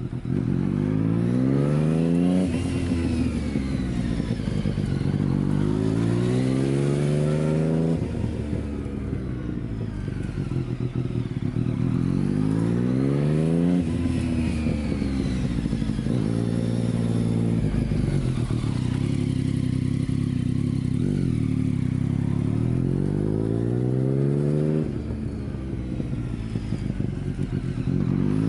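Yamaha MT-09's three-cylinder engine through an Akrapovic Racing Line full exhaust, ridden past repeatedly: the engine note climbs several times as the bike accelerates, drops back at gear changes and falls away as the rider eases off.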